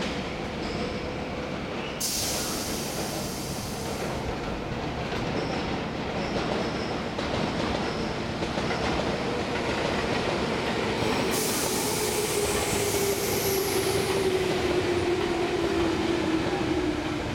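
Tobu 8000 series electric commuter train starting off and slowly gathering speed past the platform, its wheels and running gear rumbling. A burst of hiss comes about two seconds in. A steady whine slides slowly down in pitch in the second half, with high hissing and squealing from about eleven seconds on.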